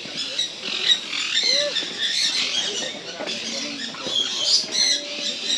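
A flock of parrots squawking and chattering, many high-pitched calls overlapping.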